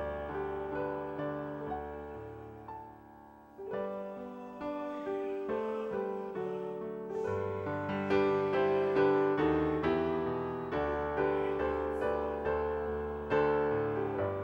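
Piano playing a slow, gentle passage, each note or chord struck and left to fade. It drops to a brief lull about three and a half seconds in, then comes back fuller.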